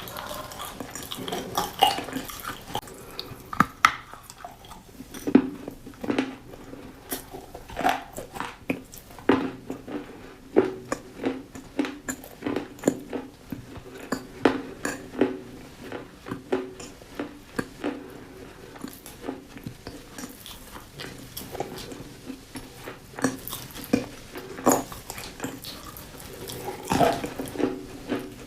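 Close-miked crunching and chewing of crisp food, with many sharp, irregular crackles several times a second.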